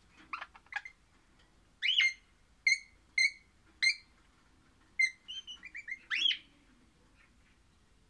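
Pennant's parakeet (crimson rosella, orange colour form) singing a series of clear whistles. A few short notes come in the first second, then a loud rising whistle, then three evenly spaced short whistles about half a second apart, then a quick run of about six short notes, and a final loud rising whistle.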